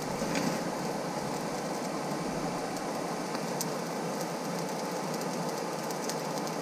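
Hair dryer used as a forge blower, running steadily at low pressure and pushing air into the coal fire, with a few faint ticks now and then.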